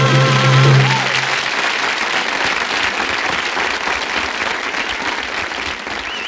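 A woman's voice holds the song's final note with vibrato over the band, which ends about a second in. Audience applause follows and slowly fades.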